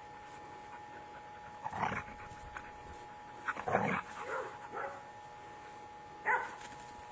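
Border collies barking in short bursts while playing, three times: once about two seconds in, a cluster in the middle, and once more near the end.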